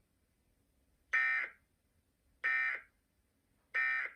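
Emergency Alert System end-of-message code: three short digital data bursts about 1.3 seconds apart, sent after the spoken test message to mark that the alert is over.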